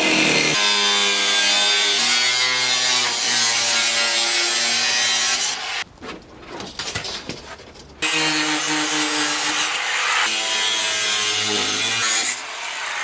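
Angle grinder cutting sheet tin: a loud, steady, hissing whine in two long cuts, with a pause of about two seconds between them in the middle.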